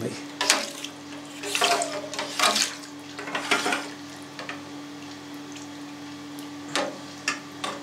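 A stainless-steel curd harp sweeping through firm cheese curd and whey in a steel vat: several wet, sloshing strokes with splashes, fewer in the middle, then a couple of dripping splashes near the end as the harp is lifted out. A steady low hum runs underneath.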